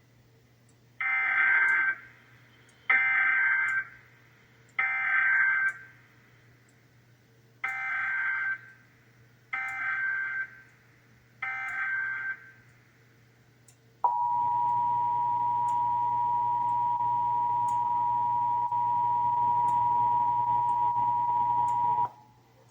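Emergency Alert System SAME header: six bursts of digital data tones, each about a second long, in two sets of three. Then the EAS two-tone attention signal holds steady for about eight seconds and cuts off suddenly. Together they mark the start of a Required Monthly Test alert.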